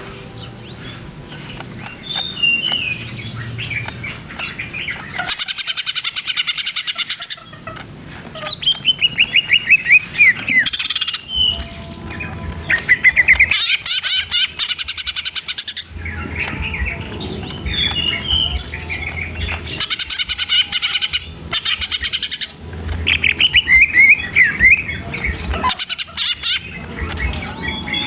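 Young songbird chirping in fast runs of rapid high notes, a burst every few seconds.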